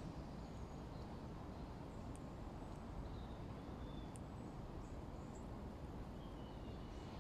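Outdoor park ambience: a steady low background rumble with faint, short, high bird chirps scattered throughout, and a couple of sharp ticks.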